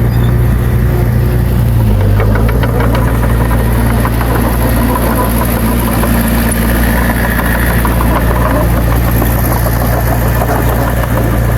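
Heavy diesel engine of earthmoving machinery running steadily, its pitch dipping slightly about two seconds in, with a brief run of light clatter at that point.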